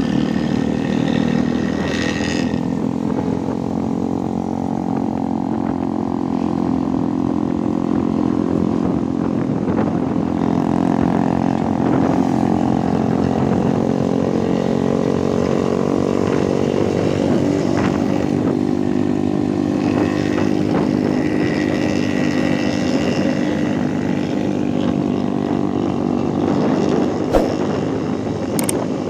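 Bus diesel engine running through a loud, growling ('ngorok') exhaust, a steady deep drone whose pitch drifts gently up and down as the bus drives on.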